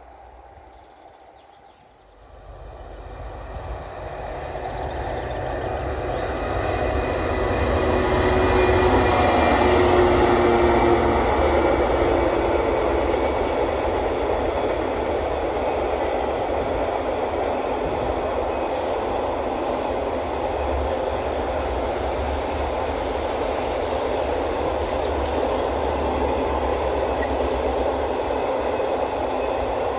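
DB Class 66 diesel locomotive, with its two-stroke V12 engine, approaching and passing with an intermodal container train. The sound swells from about two seconds in and is loudest about ten seconds in as the locomotive goes by. It then settles into the steady noise of the container wagons' wheels rolling past on the rails.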